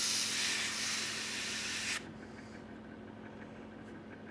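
Airbrush spraying weathering paint, a steady hiss of air and paint that cuts off sharply about two seconds in as the trigger is released. A faint steady hum carries on afterwards.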